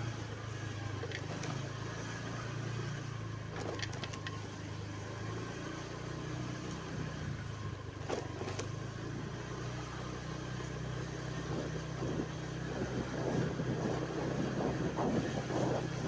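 A vehicle engine running steadily with a low hum, with a few short clicks and some rougher noise building in the second half.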